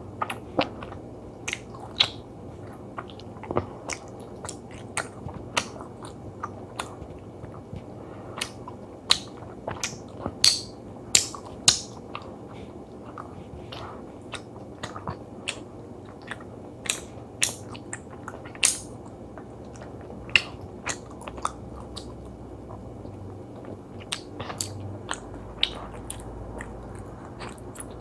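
Close-up chewing of chewy gummy jelly: wet, squishy mouth clicks and smacks at an irregular pace, sometimes several in quick succession.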